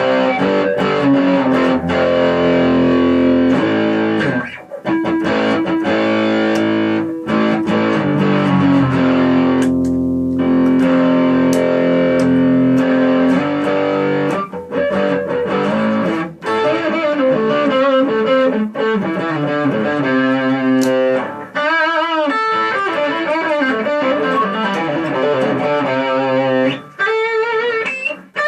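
Greco electric guitar being played: ringing chords held for a second or two each, then single-note lead lines with wide vibrato in the second half.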